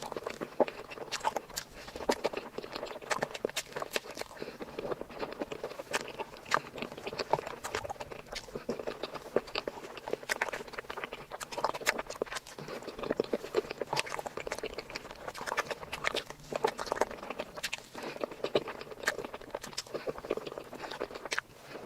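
Close-miked eating sounds: a person biting and chewing a sweet, with dense, irregular crisp clicks and crackles.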